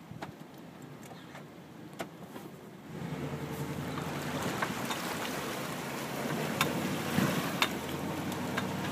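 Chevy Z71 pickup's engine running as the truck wades through a pond with its exhaust underwater, water washing around the truck. About three seconds in it grows louder and stays up, with scattered sharp knocks.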